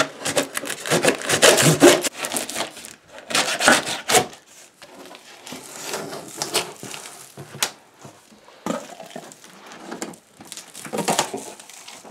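A cardboard shipping box being opened by hand: packing tape and cardboard flaps torn, scraped and pulled open. The tearing and scraping is loudest in the first four seconds or so, then turns to quieter, scattered rustling and scraping, with another louder bout near the end.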